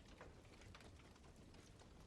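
Wood fire crackling faintly: irregular small pops and snaps over a low, steady rumble.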